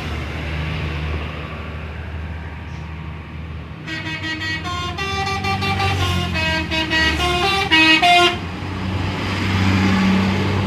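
A telolet musical bus horn plays a quick tune of stepped notes for about four seconds, starting about four seconds in. Under it a heavy vehicle engine runs steadily and swells near the end.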